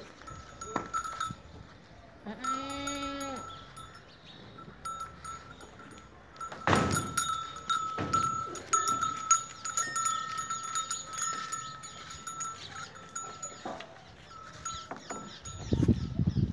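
Goats in a pen: one goat bleats once, for about a second, a couple of seconds in, while bells ring on and off throughout. A few louder knocks and shuffles come around seven seconds in and near the end.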